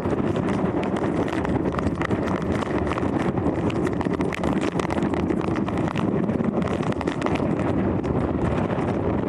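Hurricane-force wind buffeting the microphone: a loud, unbroken rush heaviest in the low end, full of rapid crackles and pops.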